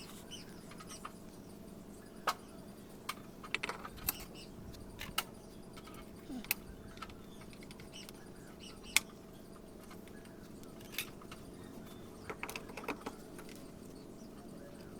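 Tools and small parts clicking and clinking during engine repair work: irregular short, sharp light strikes, about a dozen, over a steady low hum.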